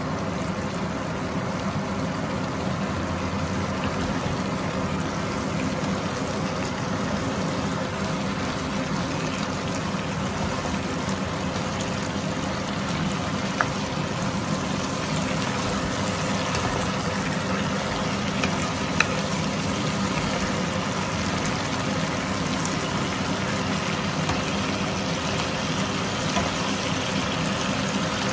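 Squid, prawns and vegetables cooking in sambal sauce in a frying pan, a steady sizzling and bubbling hiss. A few sharp clicks of a spatula against the pan come through in the middle and near the end.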